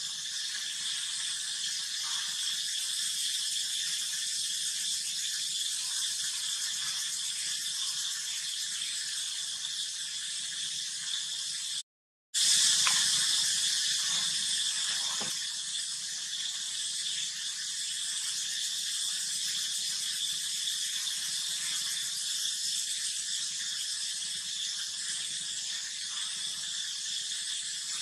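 Steady high-pitched buzzing drone of an outdoor insect chorus. It cuts out for a moment about twelve seconds in, then comes back a little louder.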